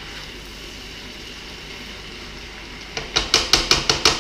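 Beef and noodle stir fry sizzling in a wok, then, about three seconds in, a quick run of about seven sharp clacks in just over a second as the stirring utensil knocks against the wok while the food is tossed.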